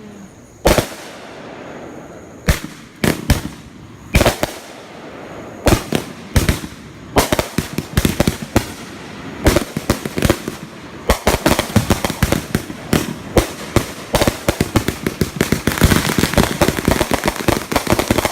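Fireworks finale going off: separate sharp bangs about a second apart at first, turning over the last third into a rapid, almost continuous barrage of bangs and crackles.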